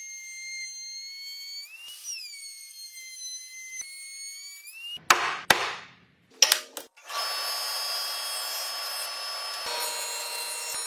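Woodworking power tools: a motor whine that dips and rises in pitch a few times, then several sharp knocks on wood, then a louder power tool running steadily on wood.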